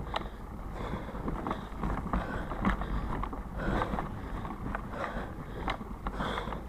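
Bike rolling fast over a muddy, leaf-strewn dirt trail, with wind buffeting the handlebar-mounted camera's microphone as a steady rumble, and scattered clicks and rattles from the bike over bumps.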